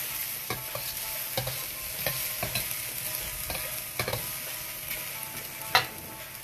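Diced vegetables sizzling in oil in a stainless steel wok while a metal ladle stirs them, the ladle scraping and clinking against the pan every half second or so. One louder clink comes near the end.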